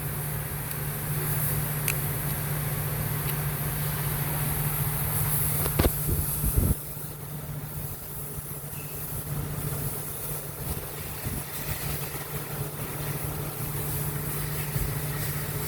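Steady low mechanical hum with a few sharp knocks and clicks, the loudest cluster about six seconds in.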